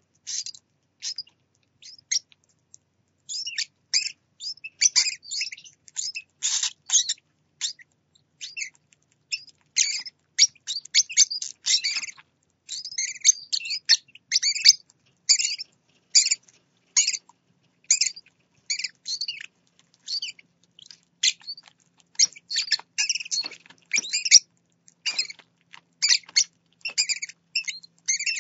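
Parrotlet chicks begging while an adult feeds them: rapid high-pitched chirps and squeaks in quick runs, almost without pause.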